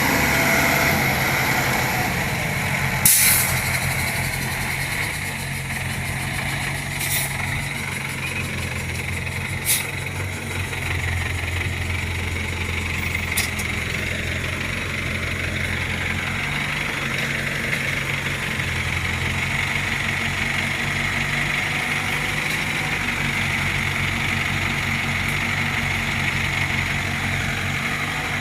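Diesel engines of a Volvo 55W excavator and a loaded dump truck running steadily at work. Four sharp clanks come in the first half.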